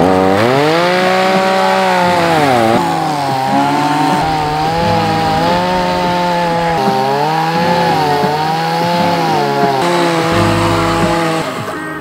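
Chainsaw cutting through the top of a wooden log post, its engine pitch rising and dropping back again and again as it revs and loads up in the cut.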